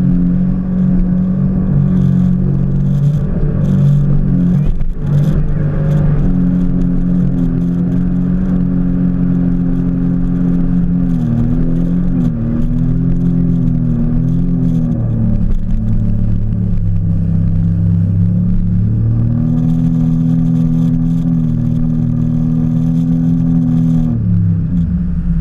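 Jet ski engine running hard at speed. Its pitch wavers midway, sits lower for a few seconds, climbs again, then falls away just before the end.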